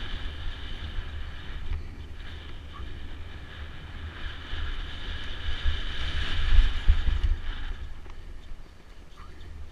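Wind buffeting the microphone of a camera on a mountain biker descending fast, over the noise of the bike's tyres running on a dry dirt trail; it swells about two-thirds through and eases near the end.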